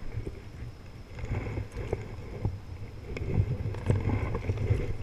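Choppy water sloshing around a wading angler, with wind buffeting the microphone as a low rumble. From about a second in, irregular splashing grows louder as the hooked snook is drawn in to the surface.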